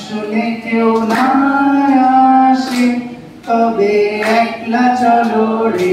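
A man singing unaccompanied into a microphone in long held notes, with a short break about three and a half seconds in.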